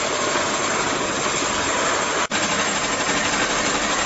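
Mini oil refinery machinery running with a steady, even mechanical noise, cutting out for an instant about two seconds in.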